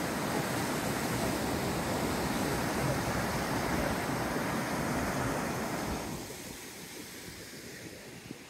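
River rapids rushing over rocks, a steady white-water noise that turns quieter and duller about six seconds in.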